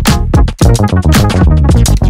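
Electronic background music with a steady drum-machine beat and bass.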